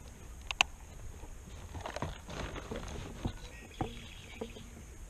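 Handling noise from fishing gear on a plastic kayak: a sharp click about half a second in, then scattered knocks and rustling as tackle is moved and put away.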